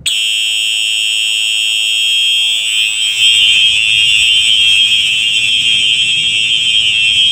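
Simplex 4903 series electronic fire alarm horn strobe sounding. It starts abruptly and holds a continuous, steady, high-pitched buzzing tone.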